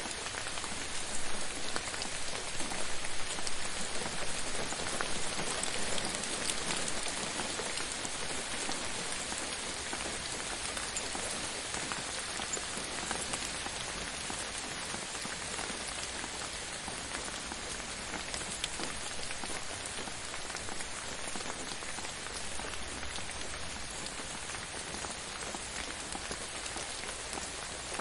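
Steady rain falling on a surface, a dense even hiss with many separate drops patting through it, a little heavier in the first few seconds.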